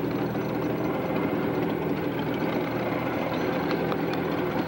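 Boat engine idling: a steady low hum.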